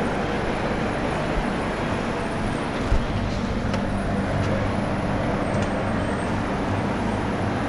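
Steady rumble and low hum of the double-decker express train, heard from its coach just after the departure horn, with a single knock about three seconds in.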